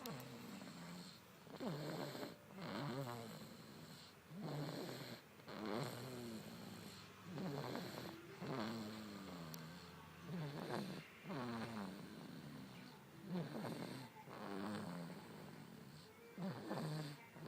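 Snoring: a run of slow, regular rasping breaths, about one every second or two, each with a buzzing rattle that bends up and down in pitch.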